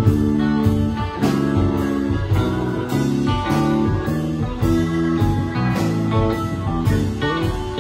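Live rock band playing: electric guitar over keyboard and drum kit, with drum strokes keeping a steady beat about twice a second.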